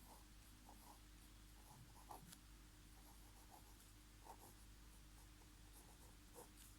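Near silence: faint, scattered scratches and ticks of a pen writing, over a low steady hum.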